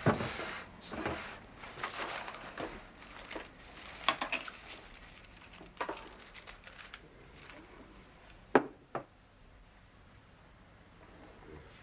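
Light clatter and rustling of things being handled on a kitchen table, with scattered sharp clicks and two sharp knocks half a second apart about two-thirds of the way through.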